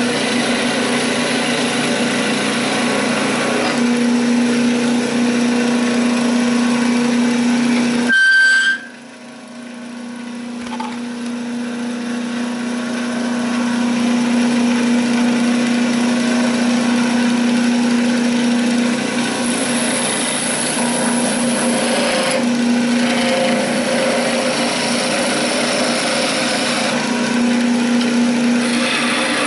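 Wood lathe running with a steady hum while a turning chisel cuts a spinning wooden spindle. About eight seconds in the sound drops suddenly and builds back up over several seconds.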